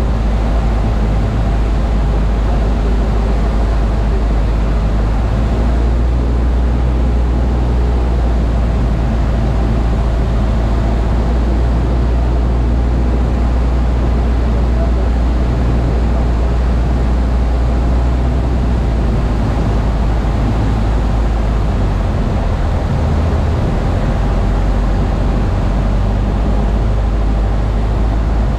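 Waiex light aircraft's piston engine and propeller droning steadily in flight, heard from inside the cockpit, with a deep, even rumble and rushing air.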